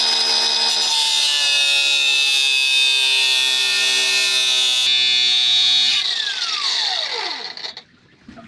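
Angle grinder running at full speed with its wheel put to a seized shaft coupling, then switched off about six seconds in, its whine falling in pitch as it spins down.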